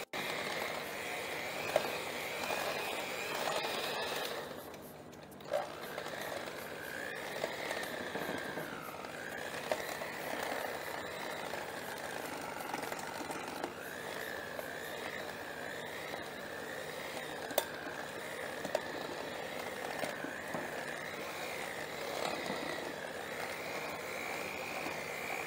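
Electric hand mixer running, its beaters whisking egg yolks and sweetened condensed milk in a glass bowl. The motor's whine wavers in pitch, with small clicks of the beaters against the bowl. The sound drops off briefly about four seconds in, then picks up again with a click.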